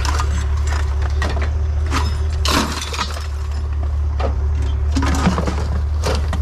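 Scrap metal being handled and picked through: a string of clanks, knocks and clinks over a steady low rumble.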